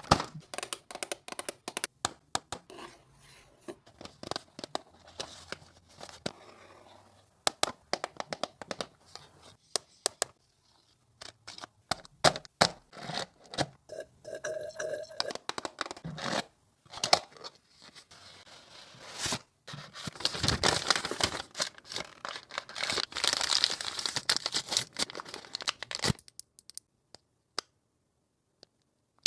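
Hands unboxing a makeup kit: packaging tearing and crinkling, with many sharp plastic clicks and taps. The handling stops abruptly near the end.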